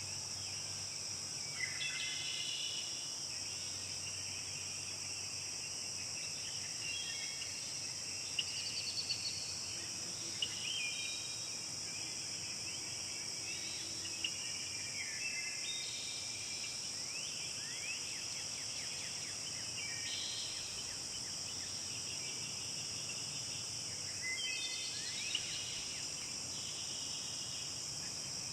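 Forest ambience: a steady, high-pitched chorus of insects, with birds chirping every few seconds over it.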